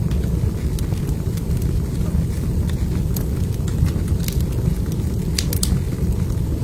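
Wood fire burning in a fireplace: a steady low rumble of the flames with scattered sharp crackles and pops, a few louder pops near the end.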